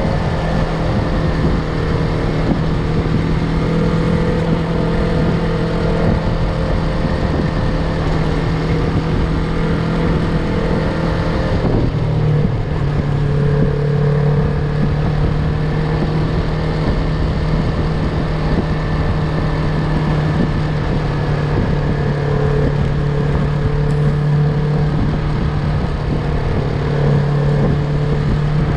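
Yamaha MT-03's parallel-twin engine running at a steady cruising speed under wind rush. The engine note shifts briefly about twelve seconds in, then holds steady again.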